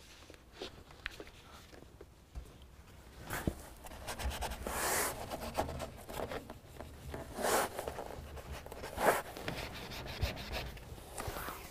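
Isopropyl alcohol wipe scrubbing across the painted wall of a pickup truck bed in several short rubbing passes, cleaning off wax and grime before Velcro adhesive goes on.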